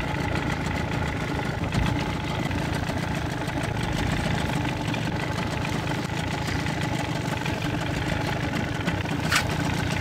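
A lobster boat's engine idling steadily, with a sharp click near the end.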